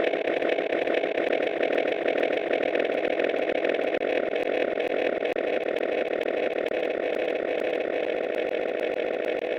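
Continuous harsh, motor-like buzzing drone, easing off slightly toward the end.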